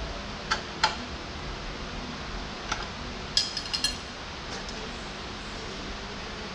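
Small metal clicks and clinks from handling steel hydraulic hard lines and fittings: a few sharp clicks, then a quick run of four ringing metallic clinks about three and a half seconds in. A shop fan hisses steadily underneath.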